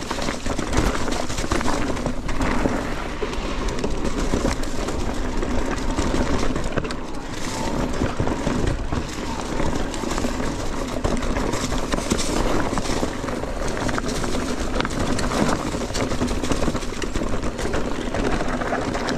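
Mountain bike ridden hard along a dirt trail: tyres rumbling over the ground, with the bike rattling and knocking over bumps.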